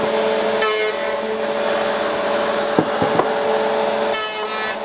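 Biscuit joiner running with a dust extractor drawing through it, a steady motor whine. Twice, about a second in and again near the end, the cutter bites into the board as the joiner is plunged to cut a biscuit slot, with a couple of light knocks in between.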